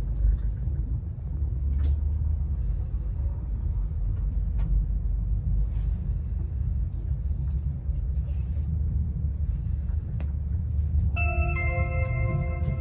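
Steady low rumble of an electric train in motion heard from inside the carriage as it pulls out of a station, with a few faint clicks. About eleven seconds in, the on-board announcement chime rings, a few bright notes held for two or three seconds ahead of a PA announcement.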